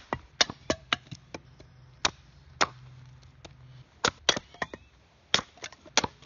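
Husqvarna Camping Axe, a small Swedish hatchet, splitting kindling off a block of wood on a chopping stump. About fifteen sharp, crisp chops come at irregular intervals, some in quick pairs.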